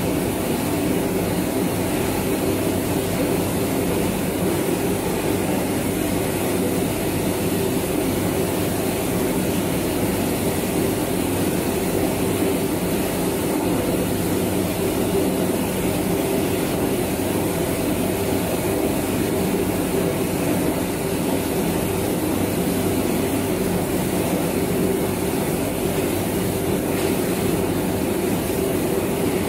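Compact combined rice milling machine running steadily: a continuous, even mechanical hum of its motors and milling sections, with a hiss over the top, as milled rice comes out.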